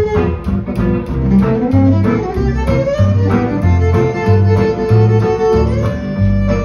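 Live gypsy jazz: violin playing a melody over steady rhythm-guitar chords and bass, the violin holding a long note in the second half.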